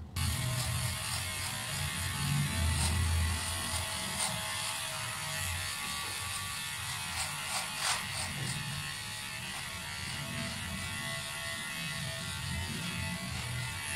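Cordless electric hair clipper switched on at the start and buzzing steadily as it cuts hair at the side of the head, with a few sharp clicks just past halfway.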